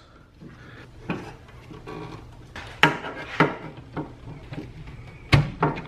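Pliers and fingers working push-on wire connectors off their terminals inside a welder's sheet-metal case. A few sharp clicks and knocks come with soft handling rubs between them, and the loudest click is about five seconds in.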